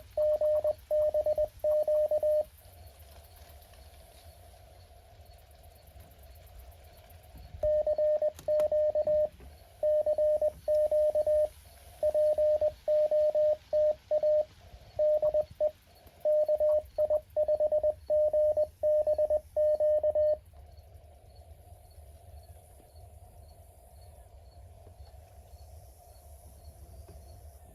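Morse code from a Mountain Topper 4B QRP transceiver: a single steady tone keyed in dots and dashes for about two seconds, then again from about eight to twenty seconds in. Faint receiver hiss fills the gaps.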